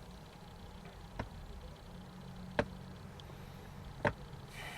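Sharp single clicks repeating about every second and a half over a low steady hum.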